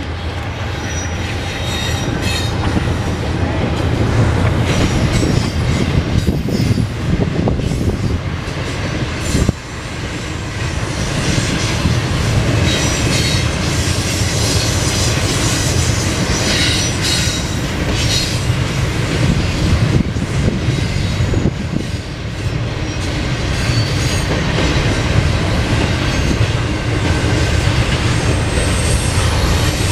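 Norfolk Southern intermodal freight train rolling past: a steady, loud rumble of steel wheels on rail, with a run of clicks as wheels cross rail joints and some high wheel squeal around the middle.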